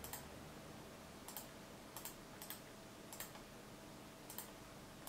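Faint, scattered clicks from computer mouse and keyboard use, roughly one a second, over quiet room tone.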